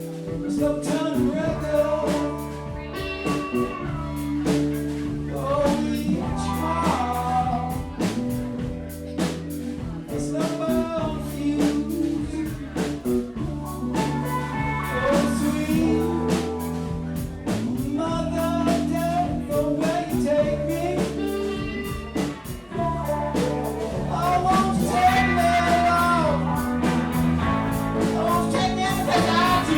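Blues-rock band playing live: a slide guitar plays gliding, wavering lead lines over electric bass and drums.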